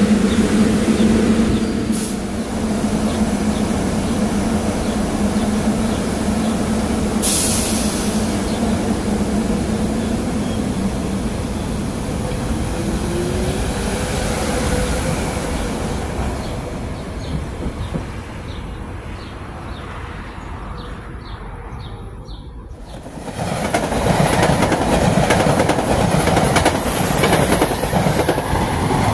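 SEPTA electric commuter train (Silverliner multiple-unit) running past on the rails, a steady hum over the rush of wheels, fading away, then quieter with a regular clickety-clack of wheels over rail joints. About 23 s in it switches abruptly to a louder rush of a train passing close at speed.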